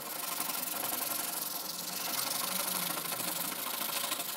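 Coarse sandpaper rubbed hard by hand over a small iron strip, a steady rasping scrub that is taking old paint and rust off the metal.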